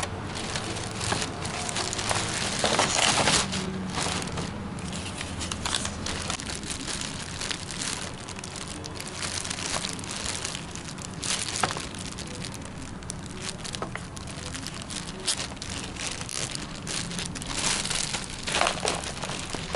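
Thin clear plastic bag crinkling and rustling as hands handle it and work its knot loose, in irregular crackles, louder about three seconds in and again near the end.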